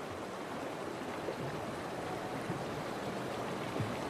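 Fast-flowing Yellowstone River water rushing steadily as bison wade and swim across it.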